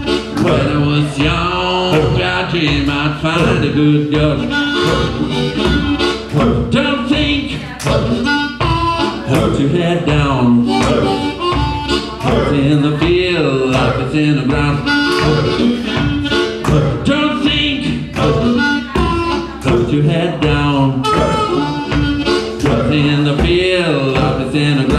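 Live band playing with a harmonica solo cupped into a microphone, over electric guitar and drums.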